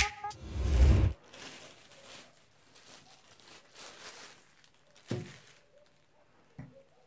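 The end of a hip-hop intro track fades out in the first second. Then faint rustling, and a single thump about five seconds in as a small boxed charger is set down on a cloth-covered table, with a lighter tap just after.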